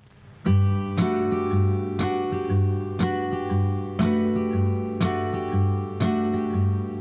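Background music: the acoustic-guitar intro of a song, strummed chords about twice a second over a steady bass, starting about half a second in.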